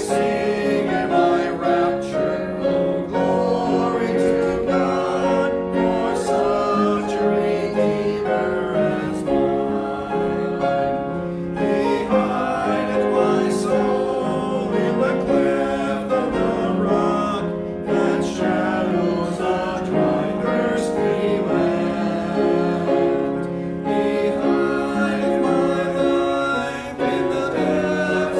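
A man singing a hymn with upright piano accompaniment, in a steady, even tempo.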